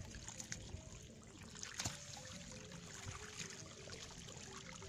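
Hands groping and sloshing in shallow muddy water while feeling for fish, with soft trickling and small splashes.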